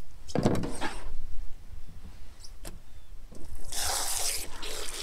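Running water starts about three and a half seconds in as a steady hiss, after a short rustling rumble near the start.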